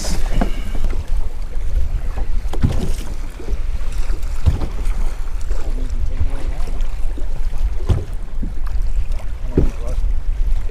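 Wind buffeting the camera microphone on an open boat deck, with a constant heavy low rumble, water slapping against the hull, and a few sharp thumps spaced through it.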